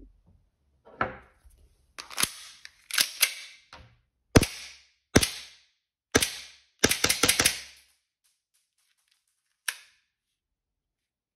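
A Tokyo Marui gas blowback airsoft pistol, a Beretta 92 replica (Albert W. Model 01P), firing: sharp cracks of the gas release and slide cycling, each with a short hiss. The shots come singly about a second apart, then as a quick string of about five near seven seconds in, with one last fainter shot near the end.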